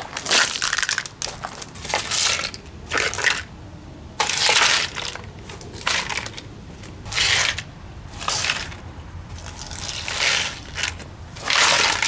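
The plastic remains of an Impress table fan being smashed and crushed on concrete: about ten loose crunches, each lasting around half a second, with short pauses between.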